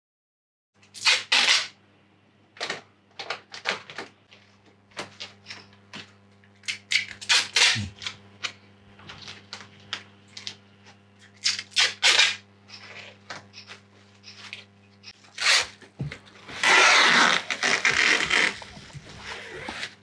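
Plastic masking film and masking tape rustling and crinkling in short, irregular handlings as they are pressed and smoothed into place by hand. Near the end comes a longer, louder stretch of about two seconds, like tape being pulled off its roll. A faint steady low hum runs underneath.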